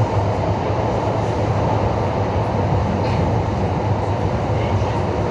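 Train running along the track: a steady rumble of the wheels and carriage.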